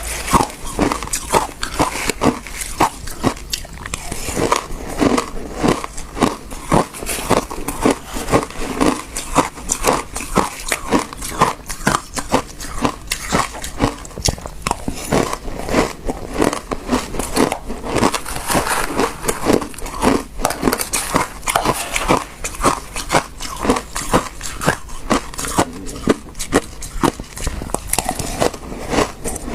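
Close-miked crunching of frozen passion fruit ice being bitten and chewed, a rapid, steady run of sharp crunches.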